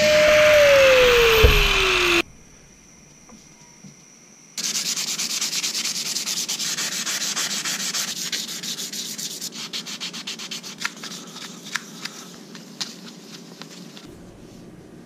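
For about two seconds an angle grinder runs loud, its pitch falling as it slows, then it cuts off. After a short pause, sandpaper is rubbed rapidly back and forth over the Morado hardwood axe handle, the strokes getting lighter and fainter toward the end.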